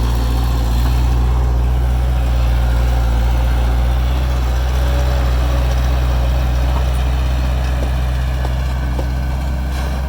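Heavy diesel engine of earthmoving machinery running steadily at a low, even pitch.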